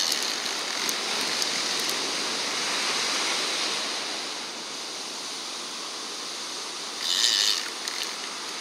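Surf washing on the beach, a steady rushing hiss, with a short high-pitched burst about seven seconds in.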